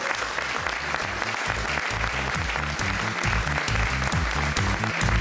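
Audience applauding. About a second and a half in, music joins it: a bass line with steady high ticks over the top.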